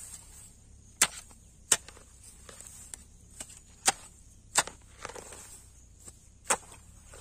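A wooden-handled bladed hand tool chopping into grass and soil in sharp, separate strikes: five hard blows at uneven gaps of about a second or two, with a couple of lighter hits between them.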